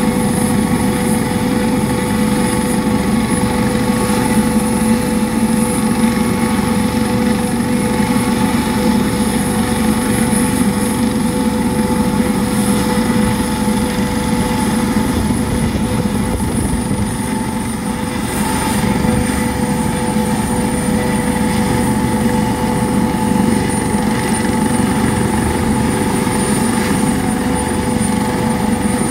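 Twin-turbine Eurocopter AS365 Dauphin helicopter running on the ground with its rotor turning: a steady turbine whine over continuous rotor and engine noise. The high whine drops slightly in pitch about seventeen seconds in.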